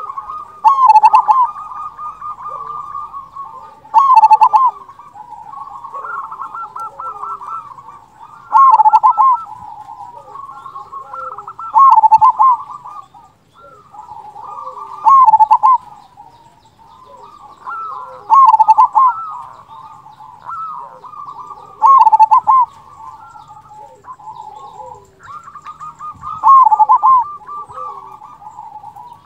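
Zebra dove (perkutut) singing its cooing song: a loud phrase with a big 'kung' note about every three to four seconds, and softer rolling coos in between.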